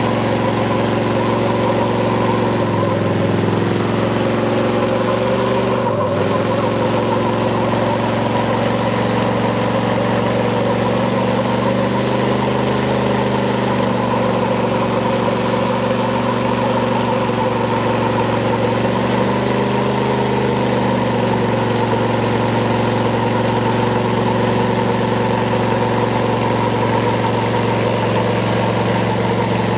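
Pickup truck engine running hard at steady revs under load while pulling in a truck tug of war, its pitch wavering slightly a few times.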